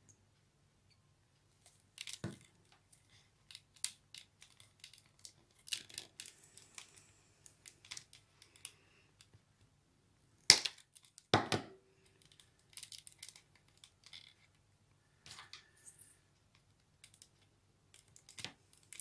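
Small clicks and rustles of hands working a basket woven from rolled paper tubes, with sharper snips from scissors cutting a paper tube about ten and a half seconds in and again a second later.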